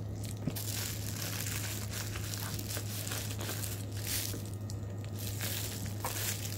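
Plastic packaging crinkling and rustling as it is handled and unwrapped from a small box, over a steady low hum.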